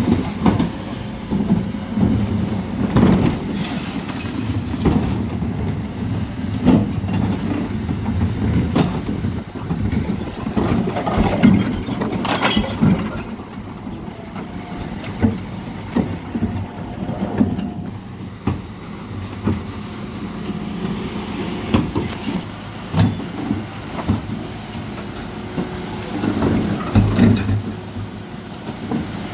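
Mercedes Econic refuse lorry running with its rear bin lifter working. The lifter raises and tips blue wheelie bins into the hopper with a steady low hum, over repeated bangs and clattering as bins knock against the lift and recyclables fall in.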